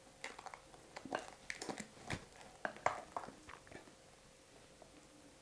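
Spoon scooping thick egg-liqueur cream out of a glass bowl and dropping it into a steel cake ring: a run of soft wet smacks and small clicks over the first four seconds, faint, then quieter as the cream is spread with a palette knife.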